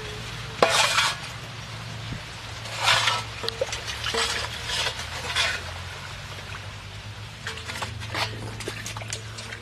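Small metal bowl scooping and splashing muddy water in a shallow ditch, in several separate bursts, with sharp clinks of the bowl against a steel basin.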